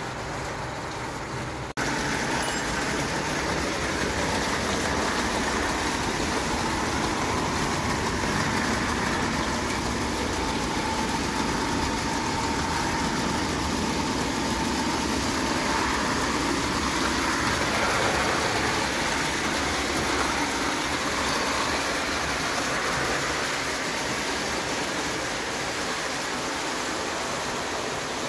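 Two spirit-fired live-steam Falk O gauge tinplate locomotives hauling a freight train on tinplate track, giving a steady rolling rumble and hiss that turns abruptly louder about two seconds in.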